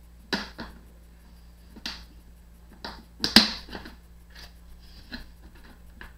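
Sharp clicks and knocks of hard plastic Beyblade stadium parts being handled and fitted together, about seven separate strikes, the loudest a little past the middle, over a low steady hum.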